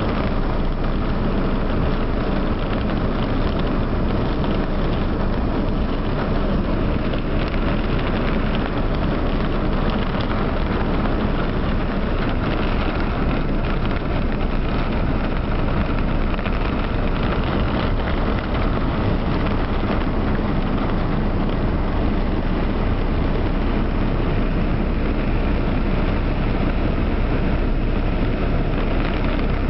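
Heavy rain falling steadily on a moving car, heard from inside the car, together with the car's running noise on a flooded, rain-covered street.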